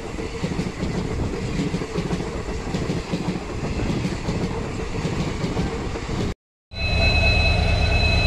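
Passenger train running at speed, heard from an open coach door: a steady rumble and rattle of wheels on the track with wind noise. About six seconds in the sound cuts out for a moment, then a steadier low hum with two steady high-pitched tones follows.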